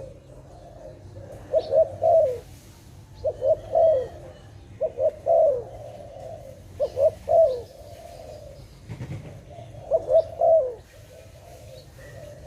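Malay (zebra) dove cooing: a repeated phrase of two or three short staccato notes ending in a longer falling note, given five times at intervals of about a second and a half to two seconds. Fainter chirps from other birds sound in the background.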